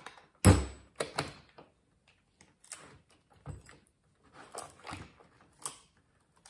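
Clunks, clicks and chain rattles as the bar and chain are taken off an Echo CS2511-T chainsaw: a heavy clunk about half a second in, then scattered lighter knocks and clicks.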